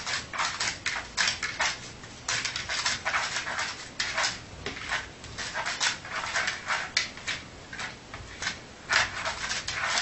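Dog squirming on its back on carpet: quick, irregular scuffing and breathy noises, several a second.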